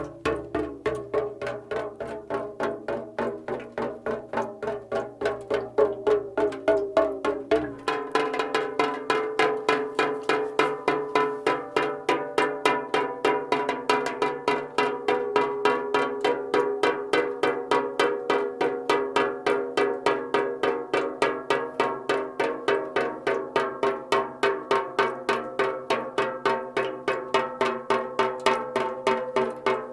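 Raindrops dripping onto a metal can in a fast, steady rhythm, each drop striking with a hollow, pitched metallic ring. A few seconds in the ringing tone shifts higher and the low rumble underneath drops away.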